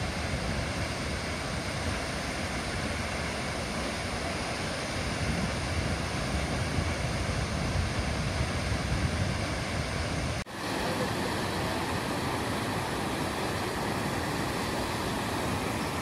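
Steady rush of a waterfall plunging into its pool. About ten seconds in, the sound cuts out briefly and a similar steady rush of water over rocks takes over.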